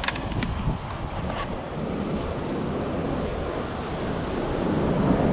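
Wind rumbling on the microphone over the wash of ocean surf, growing louder toward the end, with a few light clicks in the first second and a half.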